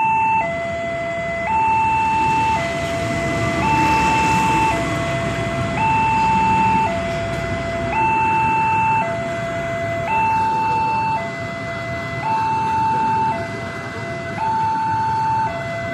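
Railway level-crossing warning alarm sounding a two-tone hi-lo signal, switching between a higher and a lower tone about once a second. A steady rumbling noise runs underneath.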